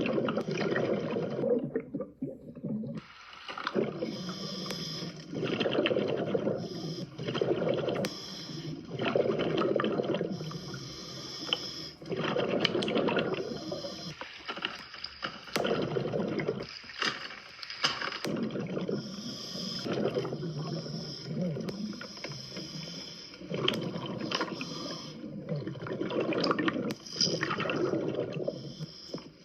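Scuba diver breathing through a regulator underwater, with repeated surges of bubbling water noise and hiss.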